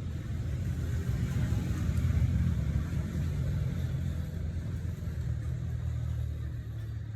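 A low, steady rumble with a faint hum in it, swelling a little over two seconds in and then easing off.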